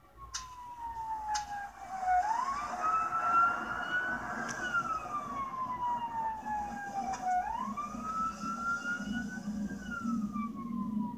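A siren wailing, its pitch sliding slowly down and up twice in long, even sweeps.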